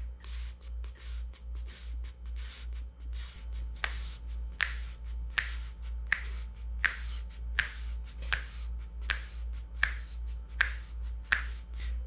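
A homemade vocal-percussion rhythm track made with voice and hands: a steady low pulsing bass under regular hissing beatbox-style beats, with finger snaps joining about four seconds in, roughly one every three-quarters of a second.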